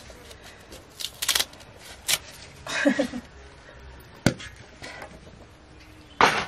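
Metal cooking pots and a lid clattering, a few short scattered knocks and clicks, then a louder scrape about six seconds in as a large pot is set down on a metal cookstove.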